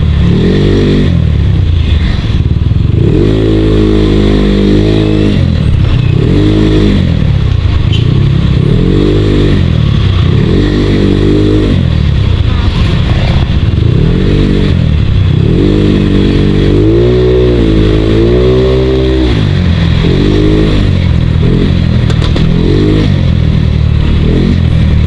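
Yamaha Mio Sporty scooter's small single-cylinder four-stroke engine under way, its pitch rising and falling again and again as the throttle is opened and eased off, with a longer surge past the middle. The owner says the crankshaft's side bearing is loose and due for replacement.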